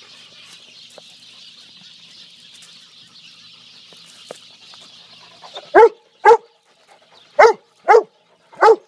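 A dog barking five times close by: loud, short, sharp barks starting a little past halfway, in two pairs and then a single one. Before them only a faint steady high hiss.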